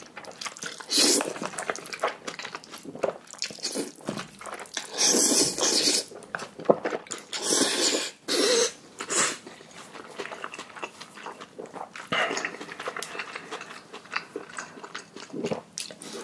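A person eating noodles: several loud slurps of up to a second each in the first half, with wet chewing in between and quieter chewing after.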